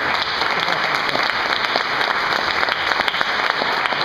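Audience applauding in a hall: a loud, steady wash of many hands clapping.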